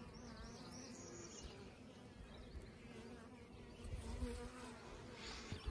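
Honey bees on an open hive comb buzzing, a faint steady hum, with a brief low rumble about four seconds in.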